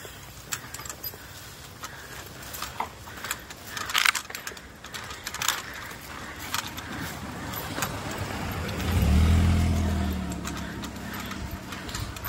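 A small hatchback car drives past and away, its engine hum building to loudest about nine seconds in and then fading. Scattered clicks and footsteps from someone walking run throughout.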